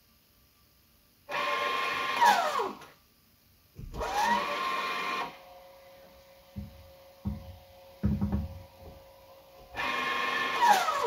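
A small electric motor whirring in three short bursts of about a second and a half each. Its whine falls in pitch as it winds down at the end of the first and last bursts, and rises as it winds up at the start of the second. Between bursts there is a faint steady hum and a few soft knocks.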